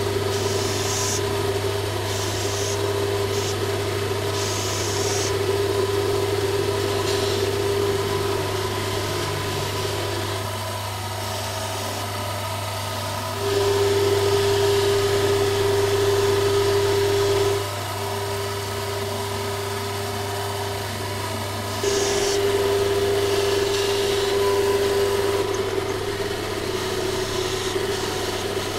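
Wood lathe running with a steady motor hum while a skew chisel cuts beads into a spinning wooden spindle, the scraping hiss of the cuts coming and going. Two longer, louder cuts come about halfway through and again later.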